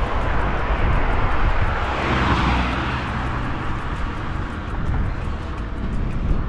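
A motor vehicle passing along the road. Its noise swells to a peak about two seconds in and then fades, over a steady low rumble.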